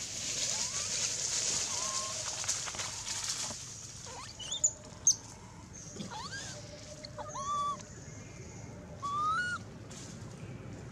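Outdoor ambience with a series of short, high animal calls that rise and fall in pitch, spaced a second or two apart, and two sharp, loud chirps about halfway through. A steady high hiss fills the first few seconds.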